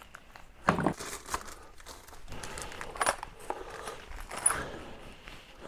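Handling noises: a knock about a second in, then scattered small clicks and light rattles of objects being picked up and set down.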